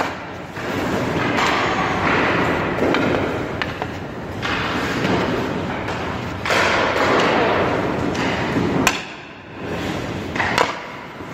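Ice skate blades scraping and carving across the ice in long hissing strokes, with a few sharp knocks near the end.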